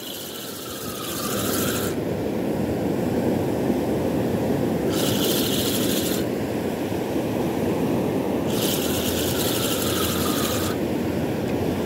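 A fishing reel cranked in three spells of about two seconds each, a fast whirring rattle, over the steady wash of surf. It is winding in a line weighed down with sargassum.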